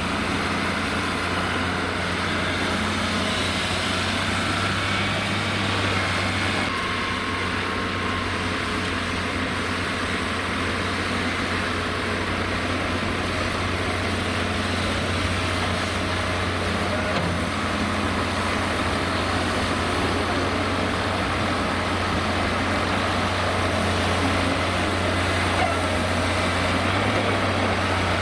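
Heavy diesel dump truck engines running steadily with a low hum, as a loaded tipper manoeuvres and raises its body to dump sand.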